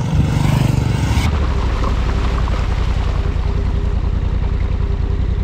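Motorcycle engines running as bikes ride by, with steady wind and road noise. About a second in the sound changes abruptly to a steadier low engine drone.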